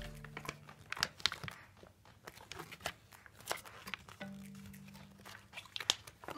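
Crinkly paper-and-foil toy packaging being handled and unfolded, giving irregular sharp crackles and rustles, over faint background music.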